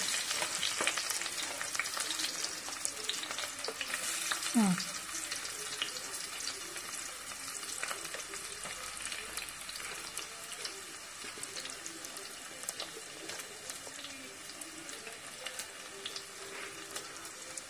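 Sliced shallots, garlic and ginger sizzling in hot oil in a clay pot, with small clicks of pieces being added and stirred; the sizzle slowly dies down. A short falling tone sounds about four and a half seconds in.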